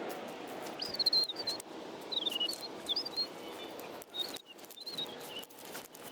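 A small bird chirping: quick high chirps in three short groups over a faint steady hiss, with a few small clicks.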